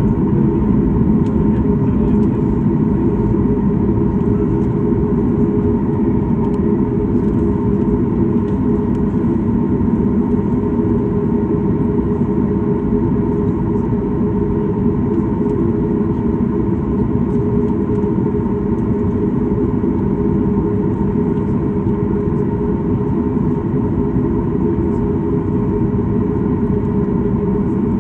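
Cabin noise inside a Boeing 737 MAX 9 taxiing on its CFM LEAP-1B engines at low thrust: a steady low rumble with a constant mid-pitched hum running through it.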